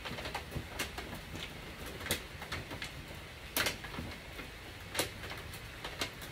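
Thin aluminum sheets crinkling and clicking as they are pressed and shaped by hand, in scattered sharp crackles a second or so apart, the strongest about halfway through.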